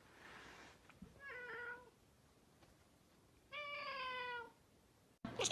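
Domestic cat meowing twice: a short meow about a second in, then a longer, slightly falling meow past the middle.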